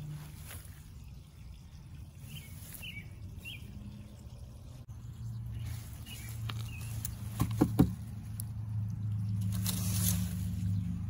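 Garden outdoor sound: a low droning hum that grows louder toward the end, a few short high bird chirps, and two sharp clicks close together about two-thirds of the way through while hands work among the carrot tops and chard in a raised bed.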